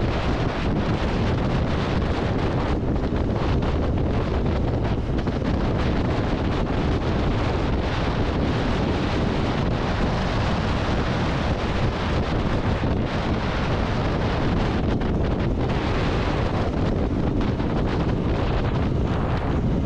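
Steady wind rushing over the microphone of a camera on a moving motorcycle at riding speed. Any engine or tyre noise is buried under it, with no clear engine note.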